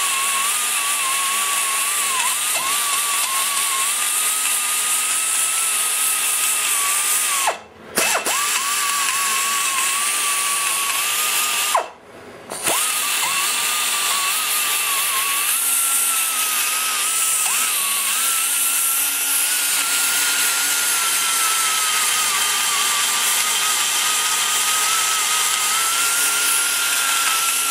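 Pneumatic die grinder running a flame-shaped burr in the intake port of a cast-iron small-block Chevy cylinder head. It gives a steady high whine that wavers as the burr cuts the port wall. It lets off twice, about 8 and 12 seconds in, the pitch falling as it spins down before it starts again.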